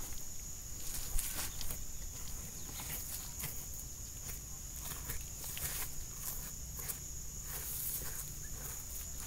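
Knife cutting and scraping the fat layer from the flesh side of a raw cow hide, in short irregular strokes.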